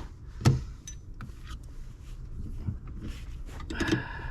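Metal clicks and clanks of a 16mm socket and breaker bar tightening a seatbelt anchor bolt, with one sharp knock about half a second in and lighter rattling after it.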